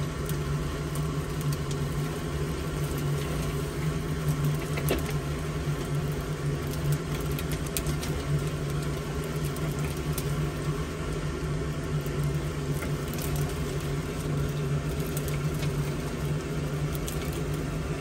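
A steady motor drone with a constant low hum, with scattered light clicks and patters of twigs and dry nest material falling as a bird's nest is pulled down inside a chimney.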